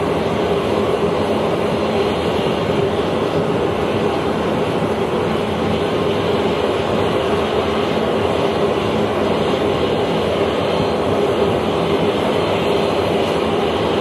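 A parked C-17 Globemaster III running on the ramp: a steady, loud drone with a constant hum.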